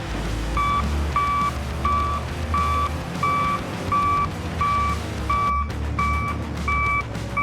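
Reversing alarm on heavy machinery beeping steadily, about one and a half beeps a second, over the low running of the machine's engine.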